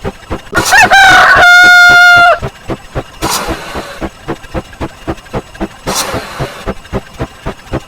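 A loud rooster-crow sound effect: one crow that rises and then holds a long, steady note, lasting under two seconds, over a fast, steady ticking. Two short swishes follow later.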